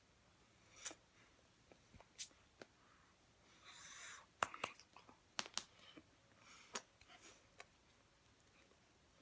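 Scattered faint clicks and taps of hands meeting and brushing while signing, with a breathy puff of air through pursed lips about four seconds in.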